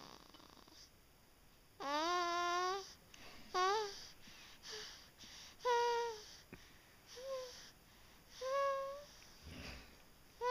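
A sleeping person snoring with a squeaky, pitched, voice-like tone: about six short sounds, each falling in pitch, coming every second or two with quiet breaths between.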